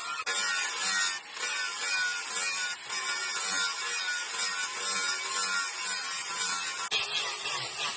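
A tool working the steel of a knife blade: a steady harsh rasping noise with wavering overtones, broken by short pauses about a second in and again near three seconds in.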